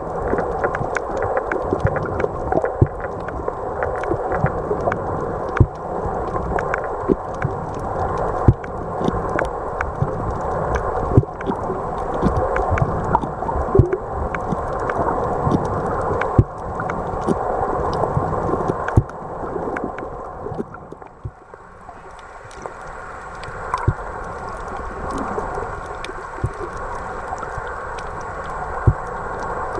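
Muffled underwater sound through a camera's waterproof housing: water gurgling and rushing, with frequent sharp clicks and crackles. It goes briefly quieter about two-thirds of the way in.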